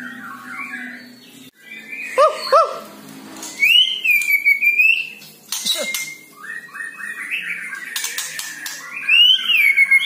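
White-rumped shama singing: loud whistled phrases of notes sliding up and down, with two short sharp notes about two seconds in and longer slurred phrases around four and nine seconds, and sharp clicks in between.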